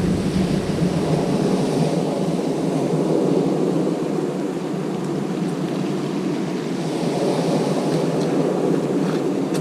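Steady rumbling noise of strong wind on the microphone and rough, choppy sea breaking on the beach, with no distinct events.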